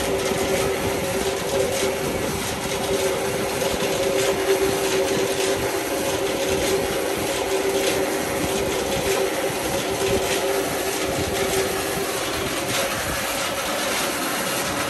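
Water rushing and churning through a gap in a sandbag bund into a channel, a steady rush. A steady low hum runs underneath and fades a couple of seconds before the end.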